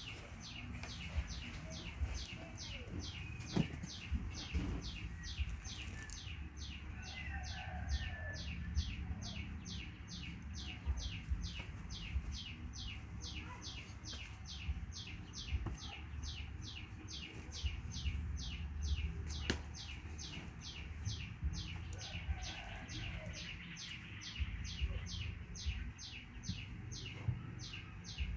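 Rhythmic high-pitched chirping, one short chirp repeated evenly about three times a second without a break, over a low background rumble.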